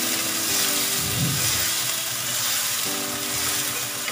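Asparagus and carrots sizzling steadily in a hot oiled wok as a little water is poured in.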